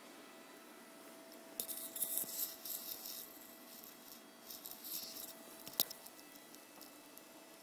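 Rustling and rubbing in two short stretches, then a single sharp click about six seconds in.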